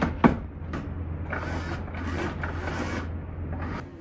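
Hard plastic clicks and clattering as a Bambu Lab AMS filament unit is handled and fitted back together, with two sharp clicks at the start, a stretch of rattling in the middle and another click at the end.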